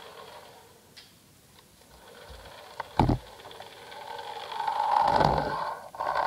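A sharp knock about three seconds in, then an RC car's small electric motor whirring, building up and staying loud toward the end.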